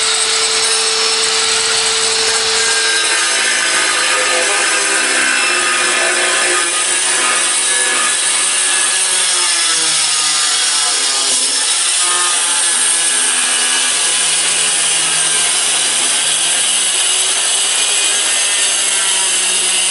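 Handheld electric tile cutter with a diamond blade cutting through a ceramic floor tile, running steadily with its whine dipping and rising in pitch as the blade is pushed along the cut. Water is poured onto the cut as it goes.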